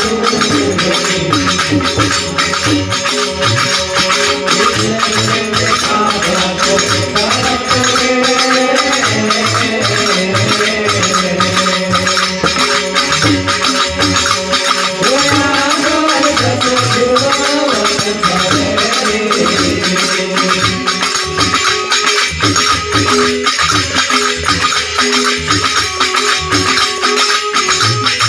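Instrumental break in a Gujarati bhajan: a melody line over fast, steady percussion with a shaker and a drum, without singing.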